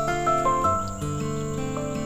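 Background music with plucked guitar-like notes, over a steady high chirring of crickets.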